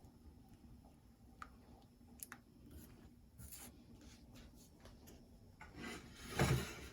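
Kitchen handling sounds: a few light clicks of utensils, then a short rustling scrape near the end.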